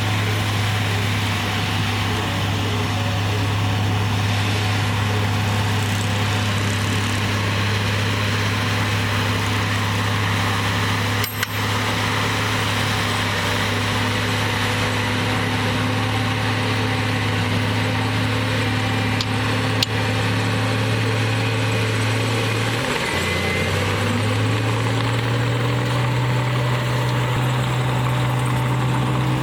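A heavy construction machine's diesel engine runs steadily. About 23 seconds in, its speed dips sharply, then climbs back and holds at a slightly higher pitch.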